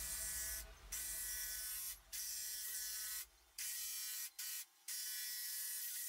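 An electric jigsaw cuts a curve in a thin plastic sheet. It runs steadily and cuts off and restarts abruptly about five times.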